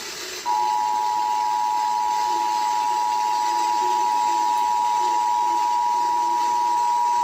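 Emergency Alert System two-tone attention signal: two steady tones sounding together, starting about half a second in after a brief hiss of radio static, announcing an emergency alert.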